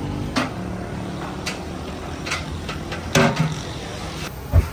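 Street noise: a steady low rumble of road traffic with a few sharp knocks scattered through it, the loudest a heavy low thump near the end.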